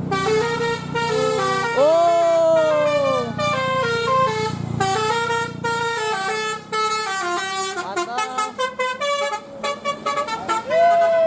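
Bus telolet Basuri musical horn playing a fast tune of stepped notes, with swooping falling tones about two seconds in and again near the end, and quick choppy notes in the later part. A bus engine runs underneath.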